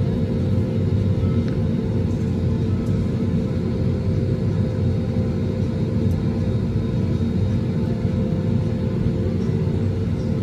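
Airbus A320 cabin noise while the plane taxis: a steady low rumble from the idling engines and cabin air, with a faint steady hum above it.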